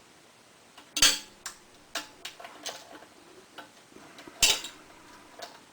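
Metal hand tools clinking and clanking while bolts are fitted to an aluminum skid plate: two loud sharp clanks, about a second in and near the end, with lighter irregular clicks between.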